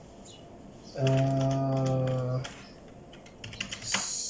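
Computer keyboard typing, a few separate key clicks, while a man holds one flat-pitched 'uhh' for about a second and a half, starting about a second in. A short hiss like an 's' comes near the end.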